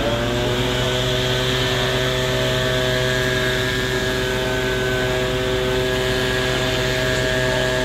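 Rollback tow truck's engine speeding up briefly, then holding a steady raised-speed drone, as used to power the truck's hydraulic bed.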